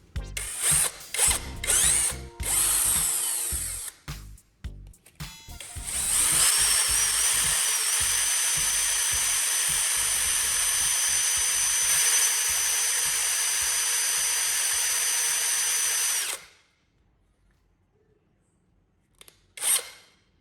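A power tool running in several short bursts, then running steadily for about ten seconds with a high whine before cutting off; one more brief burst comes near the end.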